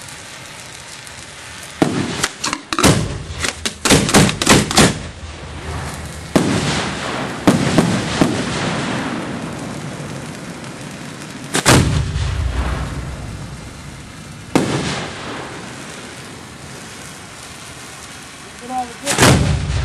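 Fireworks going off close at hand: a quick string of sharp bangs about two to five seconds in, then single loud reports about six, eight, twelve, fifteen and nineteen seconds in, each followed by a long rumbling tail.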